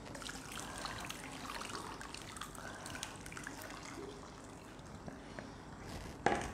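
Blended liquid poured from a plastic bowl through a mesh sieve, trickling into a steel bowl below, with small clinks of the sieve. A short knock near the end.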